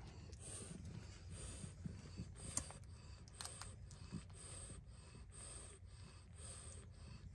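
Frenchton mother dog breathing softly and rhythmically, about one and a half breaths a second, with a couple of faint clicks near the middle.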